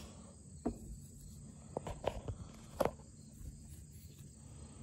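Three-blade canoe slipjoint pocketknife being worked in the hand, giving a handful of short, sharp clicks and snaps of blades moving against their backsprings, most of them between about one and three seconds in.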